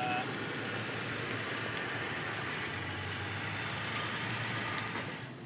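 A vehicle driving off, with steady engine and tyre noise on the dirt range. There is a short pitched tone at the very start.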